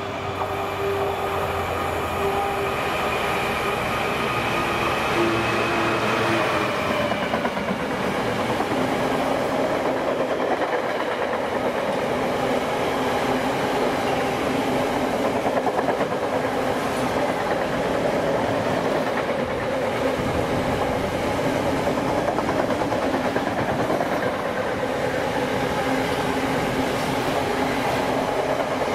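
A Class 66 diesel-electric freight locomotive runs through with its engine drone, which drops in pitch as it passes about six seconds in. A long rake of box wagons follows, rumbling steadily and clattering over the rail joints.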